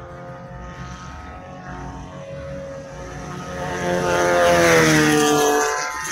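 A 1600-class dirt-track race car's engine at high revs, growing louder as the car approaches and passes close by. Its pitch drops as it goes past near the end, then the sound falls away sharply.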